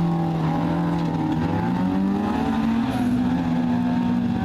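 Rally car engines running at low revs as the cars creep up to the start line: a steady engine note whose pitch drifts slightly upward about halfway through.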